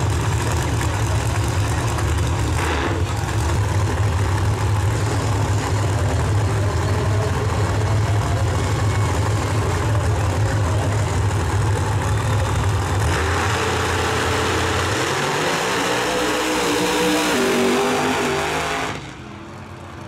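Drag-racing engines, one of them the nitrous-assisted Ford Probe, idling loudly on the starting line with a steady low rumble. A little past halfway the rumble gives way to engine notes that climb in pitch as the cars come up on revs, and the sound drops off sharply near the end.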